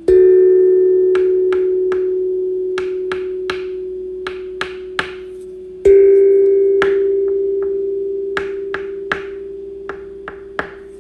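A bell-like tone struck twice, about six seconds apart, each strike ringing out and slowly fading, the second a little higher. Short sharp clicks come over it in small clusters of two or three.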